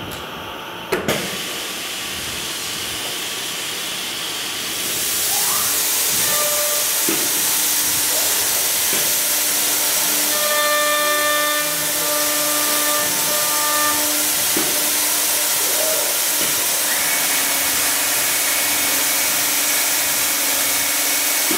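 Kval MLX CNC door machine running its hinge-side cycle. A knock comes about a second in. At about five seconds it rises to a louder, steady hissing rush, with a steady hum and a higher whine over it.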